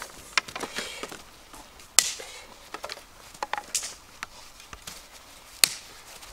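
Dry wooden sticks knocking and clattering as they are picked up and laid on a pile of firewood: scattered sharp knocks, the loudest about two seconds in and again near the end.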